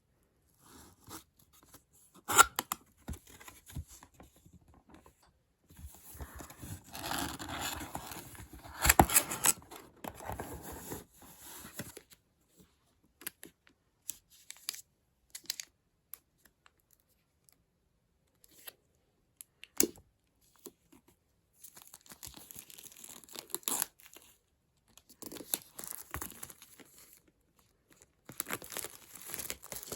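Packaging being opened by hand: irregular spells of tearing and crinkling paper or plastic, with scattered sharp taps and clicks as the box is handled. The loudest taps fall about two and a half seconds in and again near the twenty-second mark.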